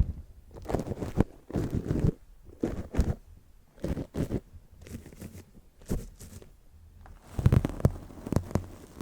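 Paintbrush brushed over a microphone covered with an old mic bag: irregular scratchy rubbing strokes with short gaps between them.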